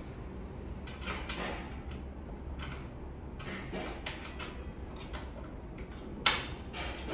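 Irregular knocks, rubs and clatter of outdoor chair parts being handled and fitted together during assembly, with one sharp loud click about six seconds in. A low steady hum runs underneath.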